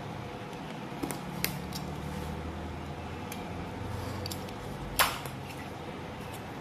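Utility knife cutting a thin wooden sheet along a steel ruler: a quiet scraping with small clicks, then one sharp clack about five seconds in.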